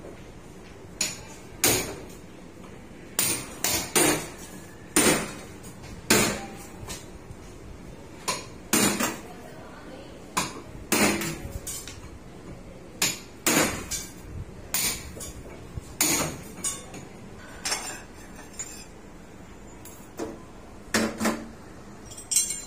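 Irregular hammer blows, roughly one a second with pauses, some in quick pairs, each knock ringing briefly, as the new stove is fitted.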